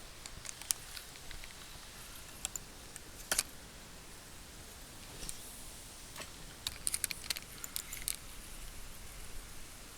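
Small metal lure parts clinking and clicking as they are handled, in irregular clusters with a busier run of clicks in the second half, over a steady hiss.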